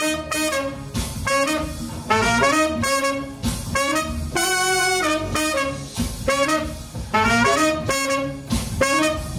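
Saxophone and trumpet playing a jazz horn line together, mostly short punchy notes in quick phrases with one longer held note about halfway through.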